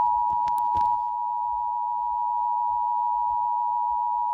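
Emergency Alert System attention signal: a steady two-tone alert tone held without a break.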